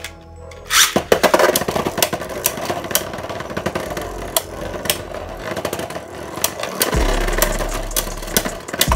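Venom Diabolos and Zwei Longinus Beyblade Burst tops whirring as they spin across the plastic stadium floor and clashing again and again in quick sharp clicks. A loud crash comes about a second in.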